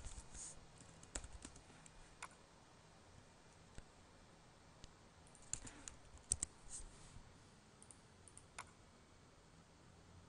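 Faint, scattered computer keyboard keystrokes and mouse clicks, with a quick run of typing about halfway through.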